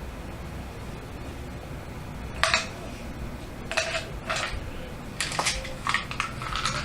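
Kitchenware clattering: several sharp clinks and knocks, the first about two and a half seconds in, over a steady low hum.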